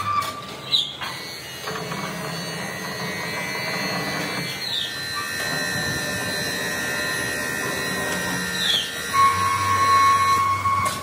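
Workshop machinery running with a steady whine of several held tones, a short falling squeal every few seconds, and a louder stretch near the end.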